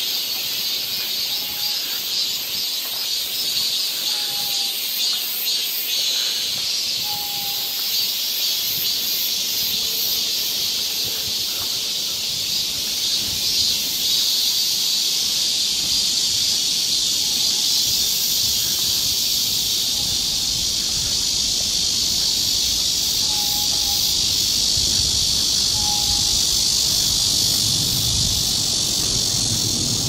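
A chorus of cicadas shrilling in a continuous high-pitched drone. Faint short bird calls come through now and then, a few times near the start and twice in the second half.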